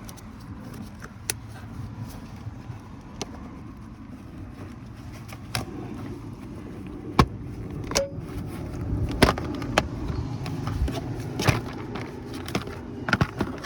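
Plastic interior trim panel of a 2000 Toyota Sienna being worked loose by hand, its plastic retaining clips clicking and snapping at irregular moments over rustling handling noise. The sharpest snap comes about seven seconds in.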